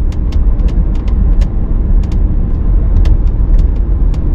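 Interior trim of a BMW X5 F15 creaking and ticking while driving, in rapid irregular sharp clicks, several a second, over steady low road and tyre rumble. The constant creaking is a build-quality fault in a car with only 40,000 km.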